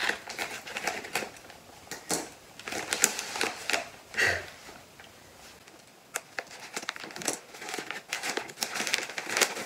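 Kraft-paper plant wrapping being crumpled and torn open by hand, in irregular crackling bursts, with a short lull a little past halfway.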